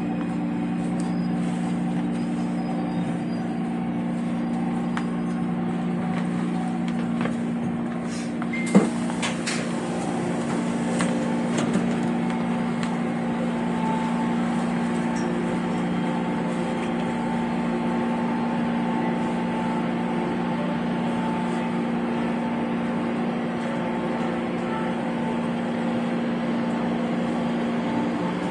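Interior noise of a Taipei Metro (MRT) train car: a steady hum and rumble from the train, with one sharp knock about nine seconds in.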